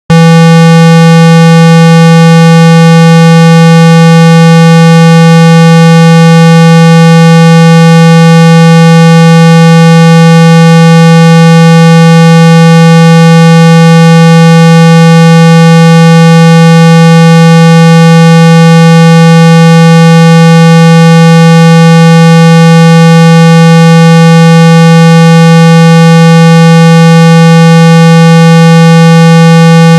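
Steady, very loud electronic 165 Hz tone, held without a break, with a buzzy edge from strong overtones: a low-frequency tone played through a phone speaker to shake out water and dust.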